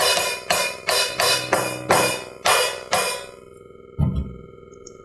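Electronic drum kit's cymbal pad struck about nine times in quick succession with a stick, each hit sounding a cymbal sample that dies away quickly. The cut-short cymbal is a choke fault that is still there after the cable repair. A dull low thump follows about four seconds in.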